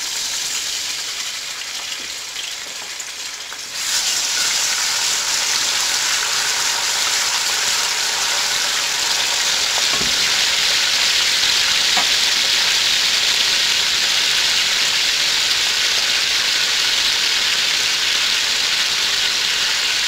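Ginger-garlic paste sizzling in hot oil and ghee in a steel wok, a steady hiss that gets louder about four seconds in, stirred with a wooden spoon that gives a couple of faint taps.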